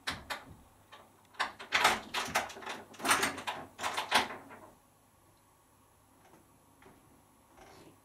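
Beko WMP511 front-loading washing machine tumbling its load in the wash: wet clothes slapping and water sloshing in the drum in a run of splashy thuds. About four and a half seconds in the drum stops, leaving a faint steady tone.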